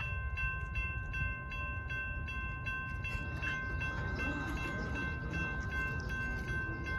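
Railroad crossing warning bell starting up and ringing at about two and a half strikes a second, signalling that the crossing has activated for an approaching train. A low rumble sits underneath.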